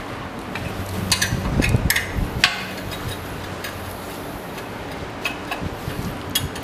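Scattered light metallic clicks and knocks of tools and gloved hands working an elevator landing-door sill and its steel mounting brackets, busiest in the first half, over a faint steady low hum.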